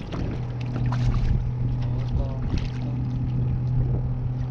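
Boat motor running steadily at low speed, an even low hum.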